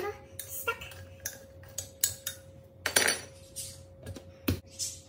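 A metal spoon clinking and knocking against a blender jug, with the plastic lid being lifted off and handled: the blender is stopped while the mango ice-cream mixture is stirred so it doesn't jam. The clicks come singly and irregularly, the loudest about three seconds in and another sharp knock near the end.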